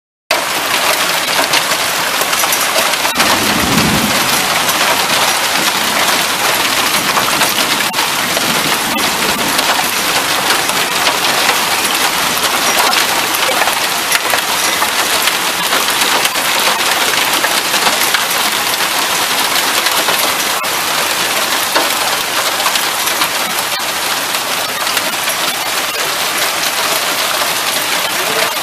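Hail and rain hitting a car, a dense steady patter of small sharp impacts, with a brief low rumble about four seconds in.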